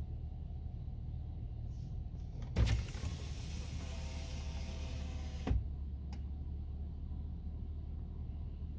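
A vehicle's electric window motor runs for about three seconds, starting and stopping with a clunk, over the steady low hum of the idling engine heard from inside the cab.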